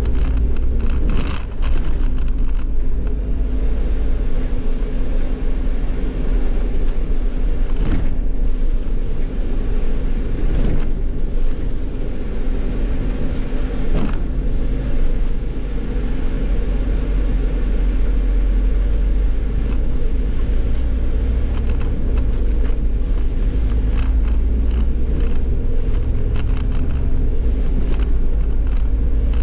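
Irisbus Cityclass city bus with its Iveco Cursor natural-gas (CNG) engine running under way, heard from the driver's seat as a steady low drone. Short clicks and knocks from the bus now and then, most often near the end.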